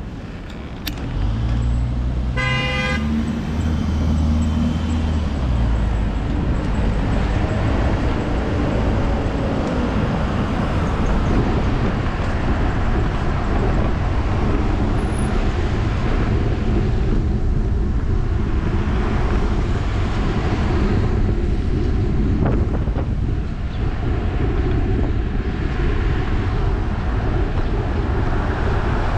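Steady wind buffeting and road rumble on a bike-mounted action camera while riding a fixed-gear bicycle through traffic. A vehicle horn toots once, briefly, about two and a half seconds in.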